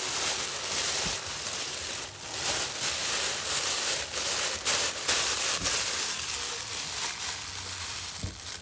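Aluminium foil crinkling and rustling continuously as it is handled and unwrapped, then stopping abruptly near the end.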